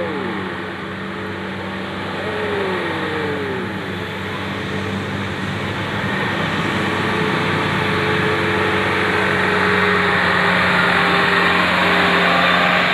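A bus engine running as traffic goes by, with its pitch falling twice in the first few seconds and the sound growing louder toward the end.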